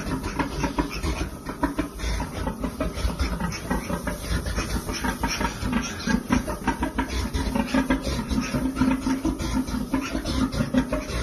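A sow and her newborn piglets grunting and squealing, a busy run of short, overlapping calls.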